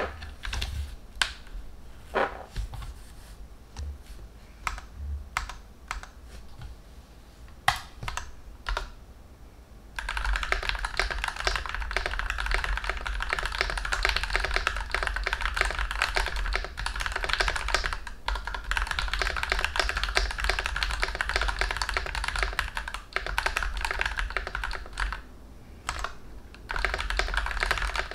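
Typing on a CIDOO ABM084 mechanical keyboard, stock except for tuned stabilizers. Scattered single keystrokes come first, then steady, fast typing from about a third of the way in.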